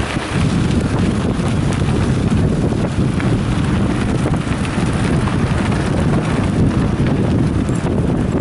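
Wind rushing over the microphone of a camera on a moving mountain bike, mixed with the rumble of tyres on a gravel road and small scattered rattles.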